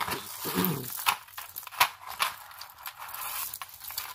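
Tangled costume-jewelry necklaces and bracelets being handled and pulled apart by hand: an irregular run of small clicks and rustling as chains, beads and clasps knock together.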